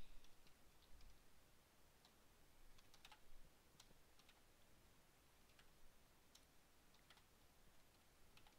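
Faint keystrokes on a computer keyboard: irregular single clicks typed at an uneven pace.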